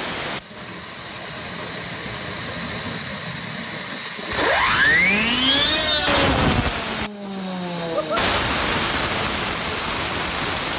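60,000 PSI waterjet stream hissing as it strikes the teeth of a quarter-inch steel saw-blade spinner. About four seconds in, the blade's loud whine climbs steeply in pitch as it spins up, then falls away, with another falling whine around seven seconds before the hiss carries on.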